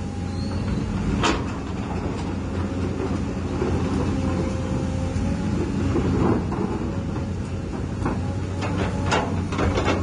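Radio-controlled JCB hydraulic excavator model running its hydraulic pump with a steady hum as it works its arm and swings, with a few sharp knocks, about one a second in, near the middle and twice near the end.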